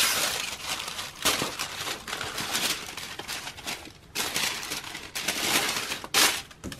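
Rustling and crinkling from handling sneakers and their packaging: a continuous run of dry rustles and scrapes, with a few brief pauses.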